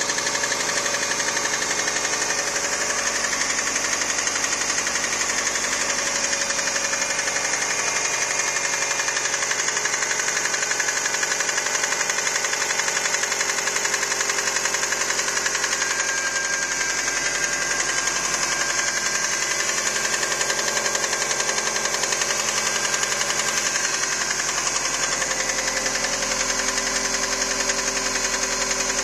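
Subaru EJ205 flat-four engine running steadily with a rapid, regular knock from inside the engine, the fault the recording was made to capture.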